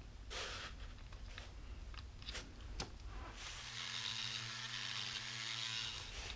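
A few light clicks and scrapes of the plastic kit figure being handled. About three and a half seconds in, a flex-shaft rotary tool runs steadily with a hiss as its bit grinds into the figure, cutting a recess for a magnet. It stops shortly before the end.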